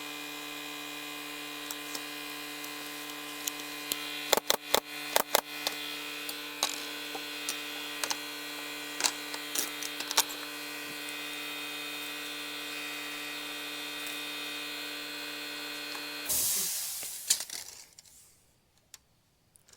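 A small electric air compressor running with a steady hum, stopping suddenly about sixteen seconds in with a short hiss of released air. Scattered sharp clicks and taps sound over the hum, a cluster of them a few seconds in.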